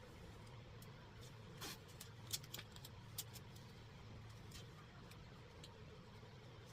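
Faint handling noise as tape is worked onto a screen door frame: a few light clicks and taps, the sharpest about two seconds in, over a steady low hum.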